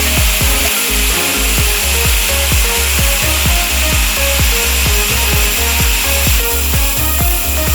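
Background music with a steady beat over the continuous high-pitched noise of a grinder grinding steel.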